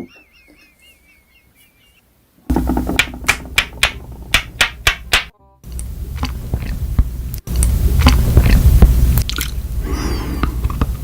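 Close-miked crunching and biting of something hard, a series of loud, irregular sharp crunches with a heavy low thump. A short wavering electronic tone comes first.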